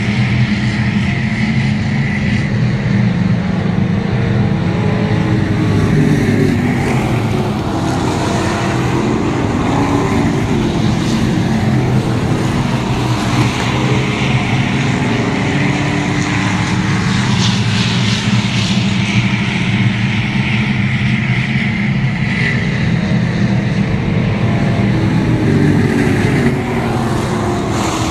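Street stock race cars' engines running as the pack laps a dirt oval, over a steady low hum, with rising and falling engine pitch now and then.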